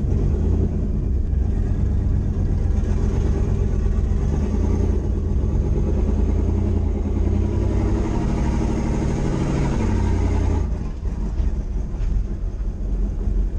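Turbocharged 1988 Chevrolet Caprice engine running at low speed, heard from inside the cabin as a deep, steady rumble with a fast pulsing beat. About ten and a half seconds in, the sound drops a little and thins out.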